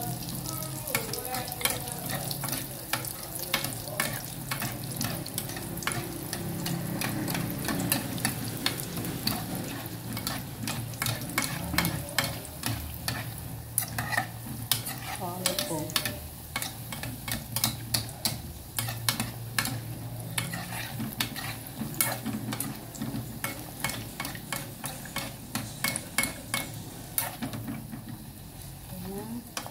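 Bolinhos de chuva (dough balls) deep-frying in hot oil in an aluminium pot: a steady sizzle full of sharp crackles and pops, with a metal spoon stirring and turning them in the pot.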